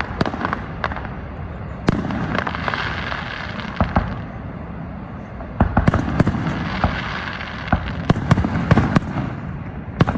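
Fireworks display going off: repeated sharp bangs in clusters, with a flurry around the middle and another near the end, over continuous crackling.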